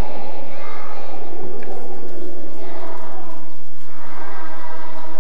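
A large children's choir singing together, holding drawn-out notes, over a steady low hum.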